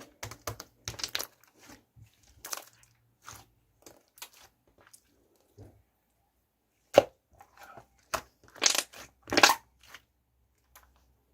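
Slime being squished and pressed: irregular sticky pops and clicks, sparse in the middle and bunching into a louder run of pops near the end.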